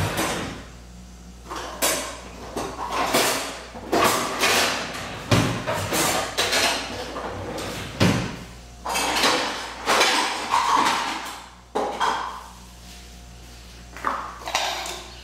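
Kitchen clatter: irregular knocks, rattles and rustling of dishes and utensils being handled, a dozen or so separate sounds, over a faint low steady hum.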